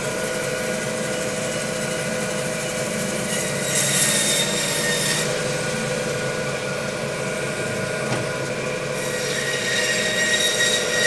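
Meat bandsaw running with a steady motor hum, its blade cutting through the bone of a beef loin. Two louder rasping cuts come about four seconds in and again near the end, as the sirloin is split from the short loin and trimmed.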